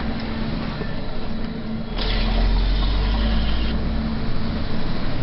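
Cab noise of a MAN TGA 18.480 truck's inline-six diesel engine while driving, heard from inside the cab: a steady hum and road noise. About two seconds in, the low rumble and hiss grow louder, then ease back again.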